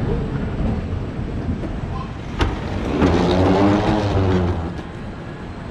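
Traffic: a road vehicle's engine swells and passes about three seconds in, just after a single sharp click.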